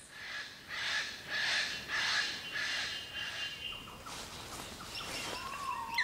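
Eclectus parrot giving a run of harsh, rasping squawks, about two a second, that die away after about three seconds.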